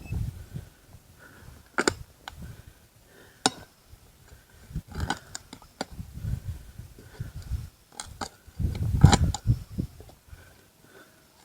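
Hand digging in soil around a tree root: sharp clicks and scrapes of a digging tool with dull thuds, the loudest about nine seconds in.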